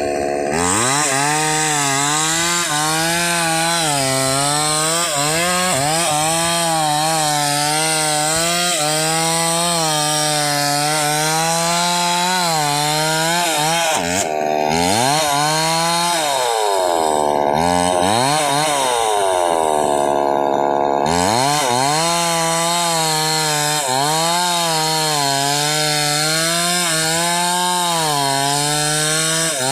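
Chainsaw running under load, cutting through a wooden beam, its engine pitch wavering as the chain bites. Around the middle the pitch drops and climbs back a few times before the saw settles into the cut again.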